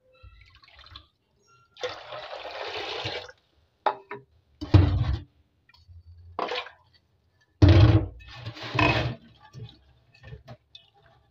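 Water gushing and splashing into a steel pot of green peas in a stainless steel sink, in several separate pours, the first a steady rush of about a second and a half. Near the end only faint swishing as a hand stirs the peas in the water.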